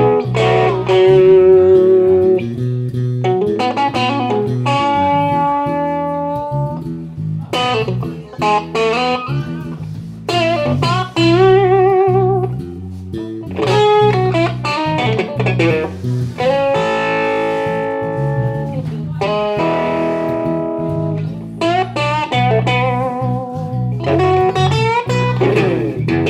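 Live blues-rock electric guitar lead over an electric bass line. The guitar holds long notes with wide vibrato and slides through string bends, while the bass keeps a steady low part beneath.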